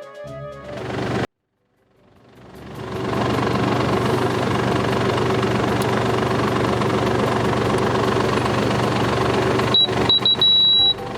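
Background music cuts off after a second. After a brief gap, a tractor engine fades in and runs steadily, for the running check of a drive harrow just refilled with oil. Near the end, short high-pitched warning beeps begin, repeating irregularly.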